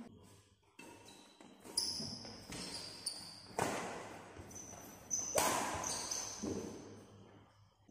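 Badminton rally in a large hall: sharp racket hits on the shuttlecock, about one every one to two seconds, each echoing off the walls, with short high squeaks of shoes on the court floor.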